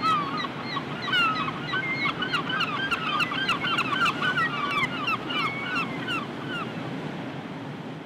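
A flock of birds calling in a rapid, overlapping chatter of short honking notes that dies away about two-thirds of the way through, over a steady rush of surf and wind.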